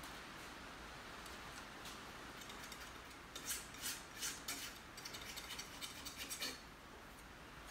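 Paintbrush scrubbing paint onto a stretched canvas: runs of short scratchy strokes from about three seconds in until shortly before the end, over a steady background hiss.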